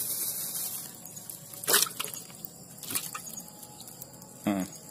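Handling noise from a plastic fish bucket and bag: a few sharp clicks and knocks, the loudest about two seconds in, with a brief pitched sound near the end.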